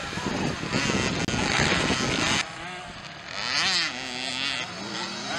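Small two-stroke 65cc motocross bike running hard as it passes close by. About two seconds in the sound cuts abruptly to several bikes farther off, their engines revving up and down.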